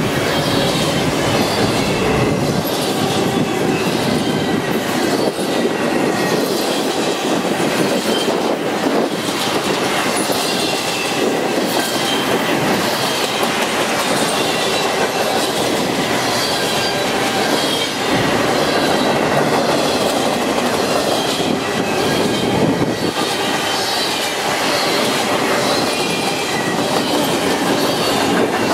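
A double-stacked intermodal container train's well cars rolling past: a steady, loud rush of steel wheels on rail, with a faint high wavering wheel squeal above it.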